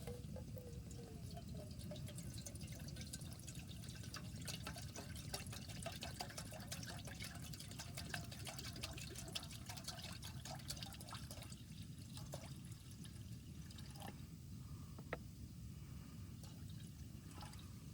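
Water poured into a cooking pot, splashing and trickling for about ten seconds, then a few scattered taps, over a steady low rumble of wind.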